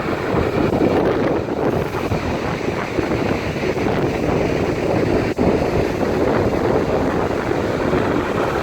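Storm-force wind buffeting the microphone over the rush of heavy waves, a loud, steady roar of noise with no pauses.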